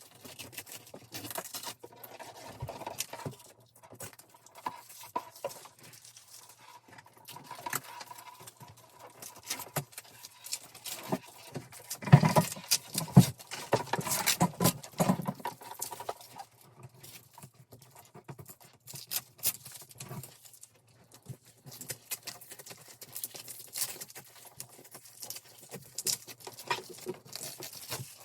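Irregular rustling, tapping and light clicking as a string of Christmas lights is handled and pulled down from a wall, with a busier stretch of knocks and rustles near the middle.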